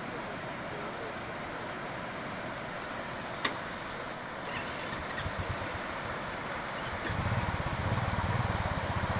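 Steady rush of a waterfall, with a few sharp clicks about three and a half seconds in. About seven seconds in, a vehicle engine's low throbbing comes in and runs louder than the water.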